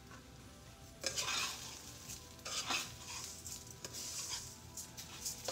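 Dry rice and diced peppers being stirred in a nonstick frying pan with a spoon, a few scraping, rustling strokes starting about a second in, over sizzling as the rice toasts in the pan.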